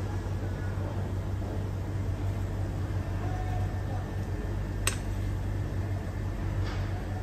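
Steady low machine hum with one sharp click about five seconds in.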